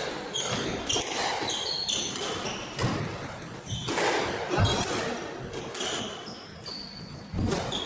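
Squash rally: the ball cracking off rackets and the court walls several times, with rubber-soled shoes squeaking sharply on the wooden court floor in short bursts.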